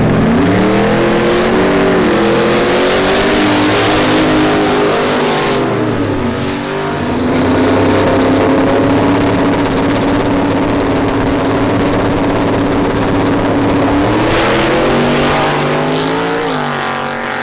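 Turbocharged LS V8 drag Camaro doing a burnout: the engine revs high and wavers over the hiss of the spinning rear tyres for about five seconds, then drops back. It holds a steady note while staging, then rises sharply at the launch about three seconds before the end and fades down the track.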